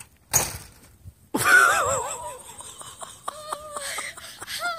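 A short rush of noise, then a person's loud shriek with a shaky, wavering pitch, trailing into breathless, wheezy laughter.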